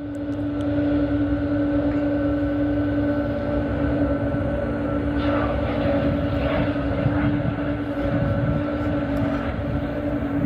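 Boeing 777's twin jet engines running steadily and loud, a constant whine over a low rumble.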